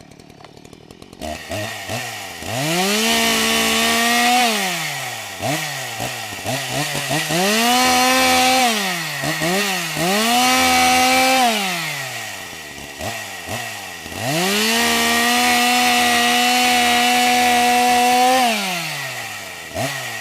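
Chainsaw revving repeatedly, starting about a second in. Each time it rises to full throttle, holds steady there for a second or more, then drops back toward idle, with short quick blips in between. The longest hold, about four seconds, comes near the end.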